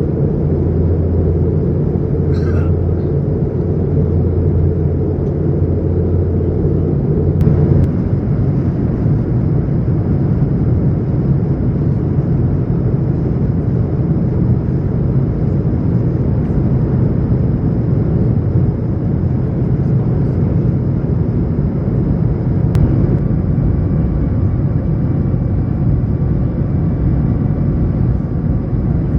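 Steady rumble inside the cabin of an Airbus A220-100, its Pratt & Whitney PW1500G geared turbofan engines running. The deep drone changes about seven seconds in, and a faint steady whine joins it in the last several seconds.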